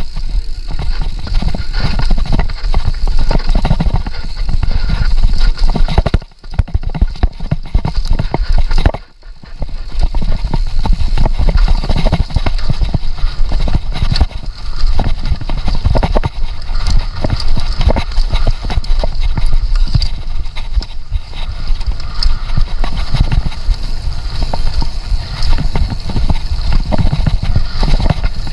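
Downhill mountain bike clattering and rattling at speed over a rough dirt trail, its tyres and parts knocking without let-up over a deep rumble. It goes briefly quieter twice, about six and nine seconds in.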